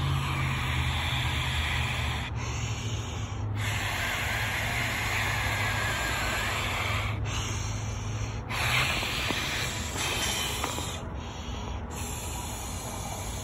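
A person blowing into the valve of an inflatable ultralight camping pillow: about seven long, hissing puffs with short pauses for breath between them.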